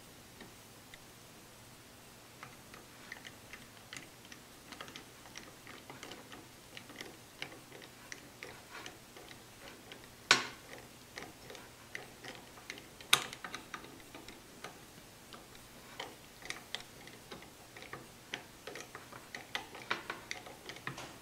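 Screwdriver turning the screws of a hard rubber rifle butt plate: irregular small clicks and scrapes, with two sharper knocks about ten and thirteen seconds in.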